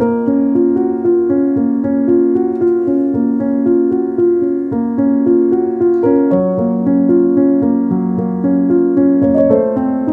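Background piano music, a slow flow of held, overlapping notes.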